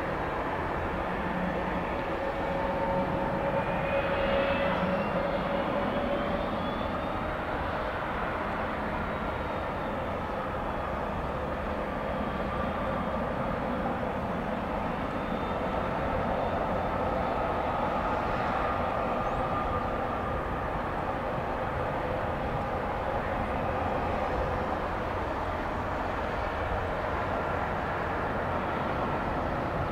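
Jet aircraft engines running: a steady rush of engine noise with faint whining tones that slowly slide in pitch.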